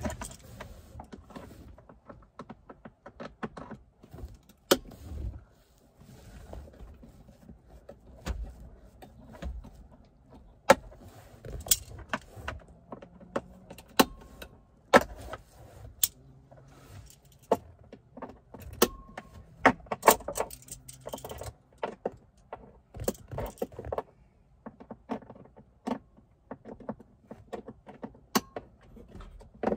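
Irregular sharp clicks, taps and rattles of hand tools, fasteners and plastic trim as hands work under a VW Transporter T5's dashboard on the heater blower resistor fitting.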